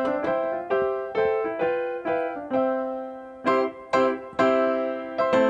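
Background keyboard music: a gentle piano-like melody of single notes struck a few times a second, each one fading away.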